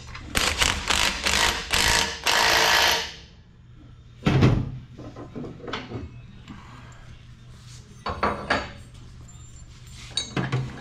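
A power tool rattling loudly in bursts for about three seconds, then stopping. A few separate knocks follow: a loud one about four seconds in and weaker ones near eight and ten seconds.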